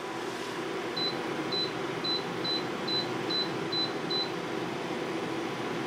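Gourmia air fryer's touch control panel beeping once for each press as the cooking time is stepped up: eight short, high beeps, about two a second, from about a second in. Underneath is a steady fan hum.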